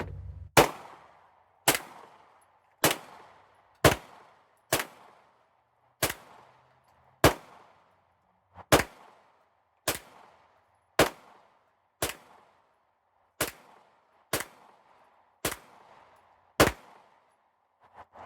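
Gunshots from a magazine-fed gun at a range: about fifteen single shots fired at a steady pace of roughly one a second, each with a short echo.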